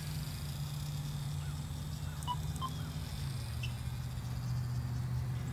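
Steady low drone of the radio-controlled model airplane's motor and propeller flying overhead, dropping a little in pitch about three seconds in, with a few faint bird chirps.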